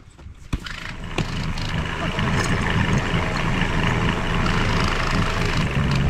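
Engine of a front-end loader tractor running, growing louder over the first two seconds and then holding steady with a low hum.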